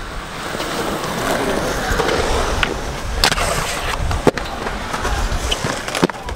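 Aggressive inline skate wheels rolling over concrete, with three sharp clacks of skates hitting the surface about halfway through and near the end.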